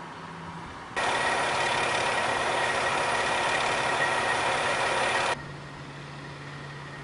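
Truck crane engine running loudly for about four seconds, starting and stopping abruptly, then a quieter steady low engine hum.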